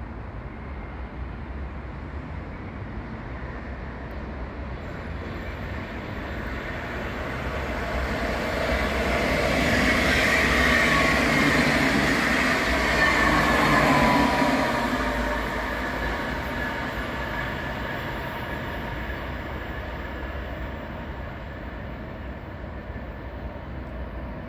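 Two coupled NS ICMm (Koploper) electric multiple units running through the station without stopping. The rumble of wheels on rail and a motor whine build up over several seconds and peak as the train passes. The whine drops in pitch as it goes by, then the sound fades away.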